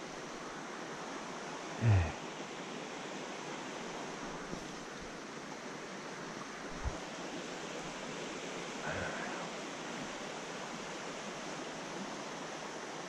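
Steady rushing of a shallow mountain trout stream flowing over rocks. About two seconds in comes a short, loud, low voice sound.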